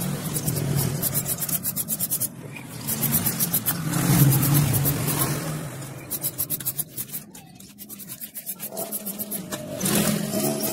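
Aerosol spray-paint can hissing onto a motorcycle wheel rim, mixed with rubbing and runs of rapid ticks as the wheel is turned by hand.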